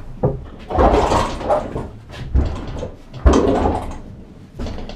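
Handling noise: a series of knocks and clunks, with two longer stretches of scraping and rattling, one about a second in and one a little past the three-second mark.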